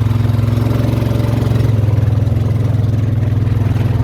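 ATV engine running steadily with a fast, even chug.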